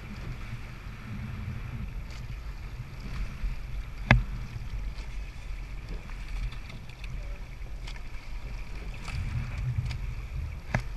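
Water washing along a rowing eight's hull, with wind buffeting the microphone. There is a sharp knock about four seconds in and a smaller one near the end.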